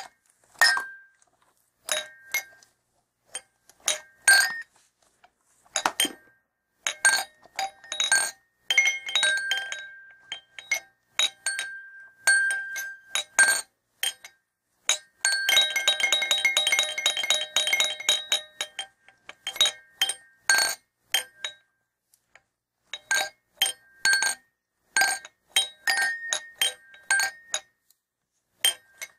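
Small doll bell rung in irregular single strikes and short clusters, each strike with a brief high, pitched ring. About halfway through it jingles rapidly and continuously for around four seconds before returning to scattered strikes.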